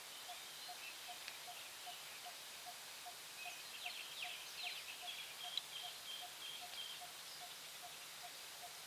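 Birds calling: a few quick downward-sweeping chirps, then a run of repeated high notes in the middle. Underneath, a faint short pip repeats steadily about two or three times a second over a light hiss.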